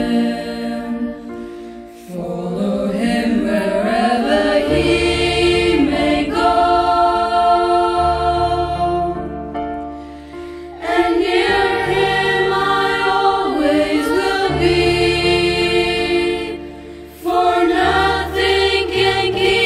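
A choir singing a slow song in long, held phrases over an accompaniment of steady bass notes, with short breaks between phrases at about two, ten and seventeen seconds in.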